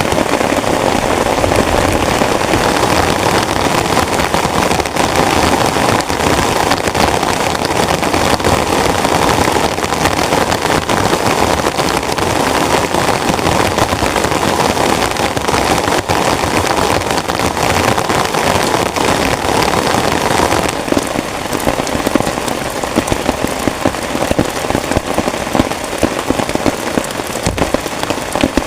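Heavy rain falling on a tent: a dense, steady patter of drops. About three quarters of the way through it eases a little, and single drop hits stand out more.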